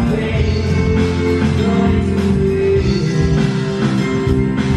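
A live band plays a song, with guitars prominent and held notes over the backing.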